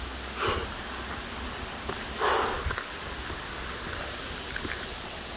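A hiker's heavy breathing from exertion on a steep uphill climb: two hard breaths, a short one about half a second in and a longer one about two seconds in.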